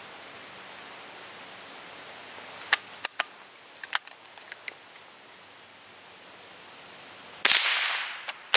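A few sharp metallic clicks of a Winchester Model 67 single-shot .22 bolt-action rifle being worked, then a single rifle shot about seven seconds in. The shot's crack dies away over about a second and is followed by two more quick clicks.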